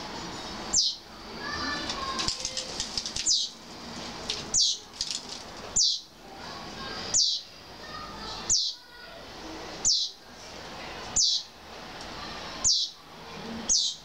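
Sparrow fledglings begging for food at a feeding adult: a sharp, high, downward-sweeping chirp repeated about every second and a quarter, with softer chirps in between.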